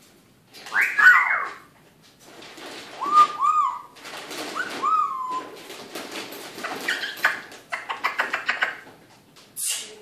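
Male eclectus parrot vocalising: a call about a second in, short arching whistles around three to five seconds, a run of rapid clicky chatter, and a harsh screech near the end.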